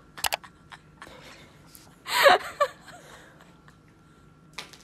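A short vocal sound about two seconds in, bending up and down in pitch, after a few sharp clicks just after the start.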